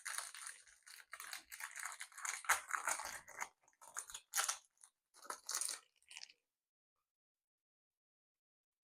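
Foil wrapper of a Pokémon TCG booster pack being torn open and crinkled by hand: an uneven run of crackling rustles that stops about six seconds in.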